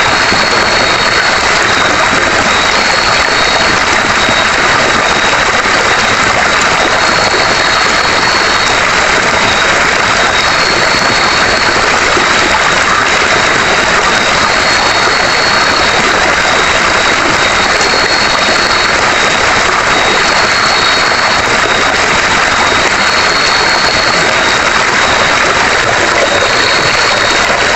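Steady rushing noise of a river flowing close by. Over it run a thin, high, unbroken whine and a slightly higher note that sounds for about a second every three seconds or so.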